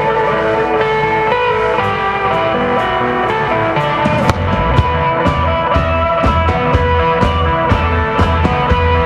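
Live instrumental desert rock from an electric guitar, bass guitar and drum trio. The guitar plays sustained notes, and about four seconds in the drums and bass come in on a steady beat.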